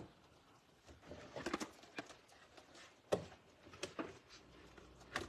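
A few scattered sharp knocks and clatters of a pan and utensils being handled in a kitchen, with light rustling between them, while grease is drained off browned hamburger.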